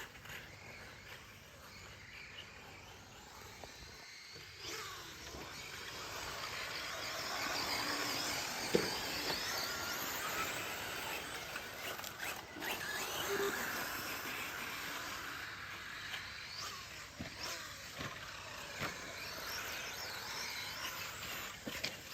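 Electric 1/10-scale 4x4 short course RC trucks racing on a dirt track: high motor whine and tyre hiss, swelling from about five seconds in as the pack passes close, with a single sharp knock near nine seconds in.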